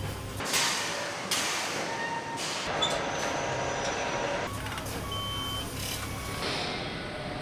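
Motorcycle assembly-plant floor noise: machinery, air and handling sounds with a few short electronic beeps, changing abruptly every second or two as short clips are cut together.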